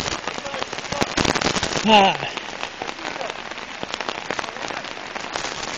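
Steady hiss of rain and muddy floodwater flowing over the ground, peppered with many small crackling ticks.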